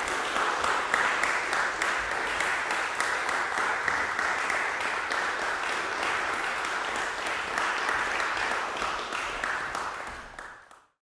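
Audience applauding: a dense patter of many hands clapping, fading out quickly near the end and cutting to silence.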